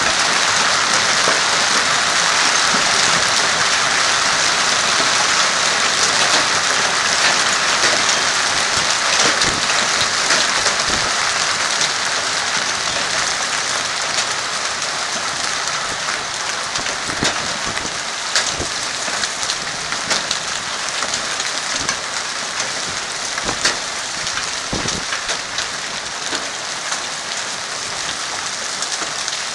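Hailstorm: a dense, steady patter of hail and rain with many sharp individual hailstone impacts, slowly easing over the second half.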